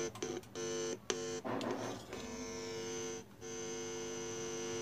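A speaker driven by a Philips DVD home-theatre amplifier on aux input gives a steady electrical hum. The hum cuts out briefly a few times, with a crackle about one and a half seconds in. The hum shows that signal is now reaching the speaker through the repaired aux connection.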